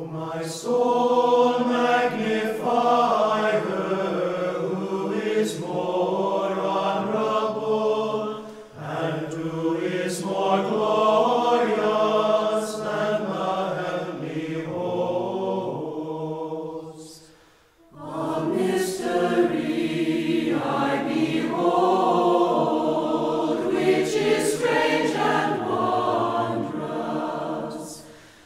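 Orthodox church choir singing a Marian hymn unaccompanied, in three long sustained phrases. There is a short break after the first phrase and a brief near-silent pause after the second.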